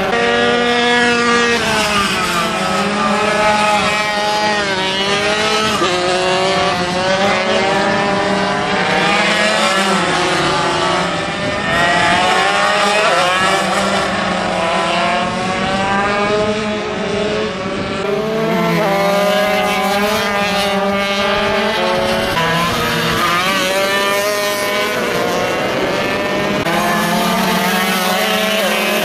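Several MiniGP race minibikes on track, their small engines revving up and down through the gears, with many overlapping pitches rising and falling over a steady low drone.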